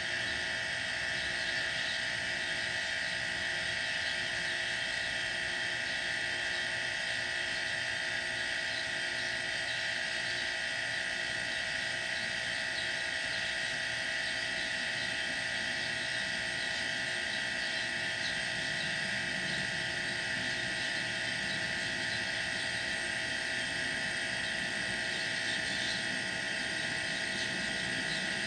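Two refrigerator compressor motors running together as a homemade air compressor, pumping air into a 100-litre tank as it fills. A steady hum with a high, even whine.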